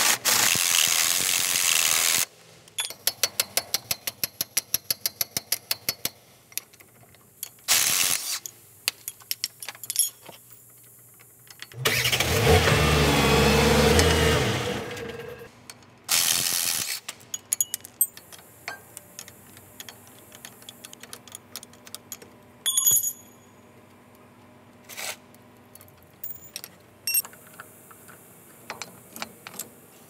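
Hand tools working the bolts of a truck drive shaft's universal-joint flange: a ratchet wrench clicking in a fast run, clinks of wrenches on bolts, and a few louder bursts of mechanical noise, the longest lasting about three seconds near the middle.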